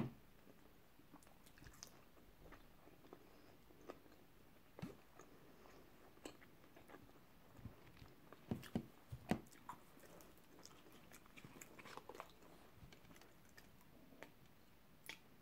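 Faint chewing and crunching of fried hash browns in the mouth, with scattered small clicks. A short run of louder clicks and taps comes about eight to nine and a half seconds in.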